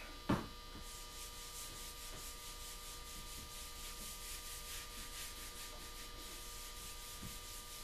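A cloth rubbing oil finish into a maple rifle stock, a faint swishing made of quick repeated strokes, several a second. There is a short knock just after the start.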